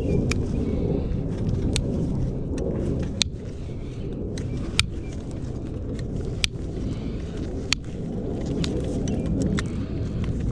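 Sharp metal clicks about every one and a half seconds, typical of hoof nippers snipping a horse's hoof wall during a trim, over a steady low rumble.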